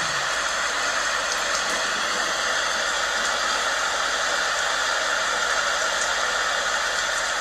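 Heavy rain falling steadily, an even wash of noise with a few faint drop ticks.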